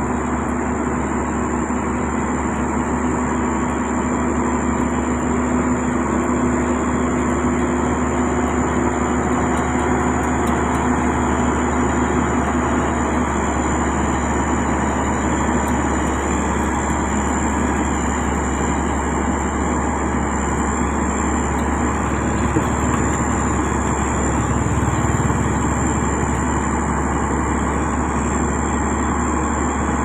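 Diesel engine of heavy road-construction machinery running steadily, with no pauses or revving.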